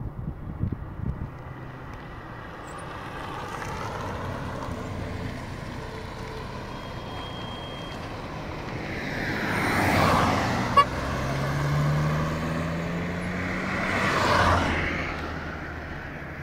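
Road vehicle noise: a steady engine hum with two vehicles swelling past about four seconds apart, and a short sharp click just after the first one. Between the two pass-bys an engine note rises.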